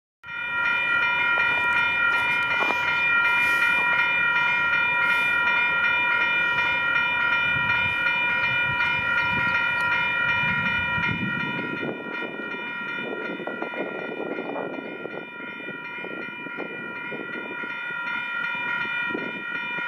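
Union Pacific EMD diesel locomotive's multi-chime air horn sounded in one long, unbroken blast as the train approaches. A low rumble from the train grows beneath it about ten seconds in.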